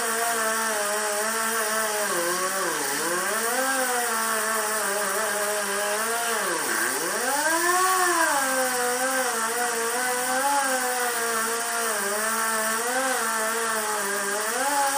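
Air-powered angle grinder with a small disc grinding fiberglass and epoxy off a plastic car grille. It runs with a steady whine whose pitch sags and recovers again and again as the disc is pressed into the work, most deeply about three and seven seconds in.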